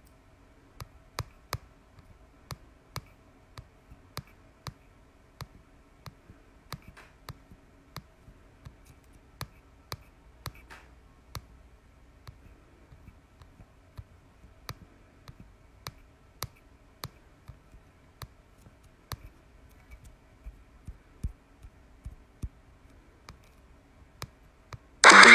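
A long series of sharp, dry clicks at an uneven pace of roughly one to two a second, over a faint steady hum. Loud music cuts in abruptly at the very end.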